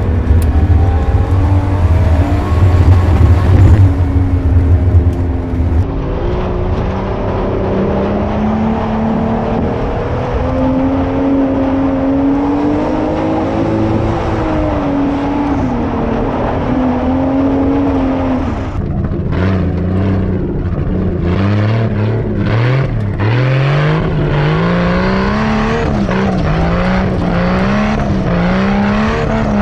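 Turbocharged Nissan RB20DET inline-six in a 240SX revving hard under load, its pitch climbing and falling with throttle and gear changes, with a heavy low rumble under it for the first several seconds. In the last third the revs climb sharply again and again, about once a second, as the throttle is stabbed while the car slides on dirt.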